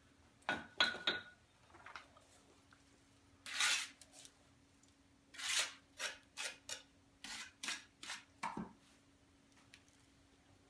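Scraping and clinking of hand work on stone veneer: mortar being scraped and spread, and stone pieces knocking as they are set, in separate short strokes with two longer scrapes and a quick run of strokes near the end. A faint steady hum sits behind it from about two seconds in.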